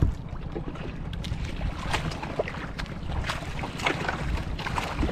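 Wind buffeting the microphone on a small outrigger banca at sea, with water splashing and slapping in short, irregular bursts.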